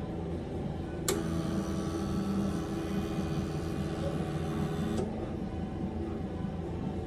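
A machine starts with a click about a second in, runs with a steady tone for about four seconds, then cuts off suddenly, over a constant low hum.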